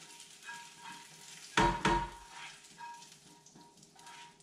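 Hot tarka being scraped out of a small frying pan into a pan of onion curry with a silicone spatula: light sizzling and scraping as the spiced oil goes in. Two quick loud knocks against the pan a little over halfway through.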